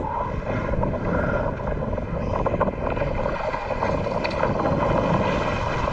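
Boat engine running with a steady drone and low rumble.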